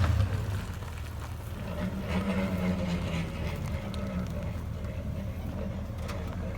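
A vehicle engine running steadily at low speed with a low hum, a little louder for about two seconds starting around two seconds in.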